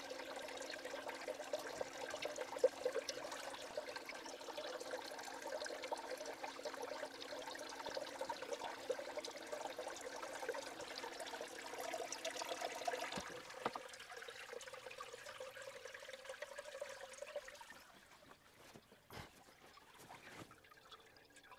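Water from a small submersible pump pouring and swirling in a Blue Bowl concentrator, with the pump motor's steady hum under it. The lower hum stops about 13 seconds in, and the rest of the hum and most of the water sound fall away a few seconds later, leaving a faint trickle.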